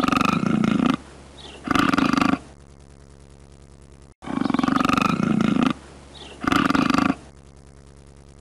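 Cougar (mountain lion) calling: a harsh call lasting about a second, then a shorter one, the pair heard twice.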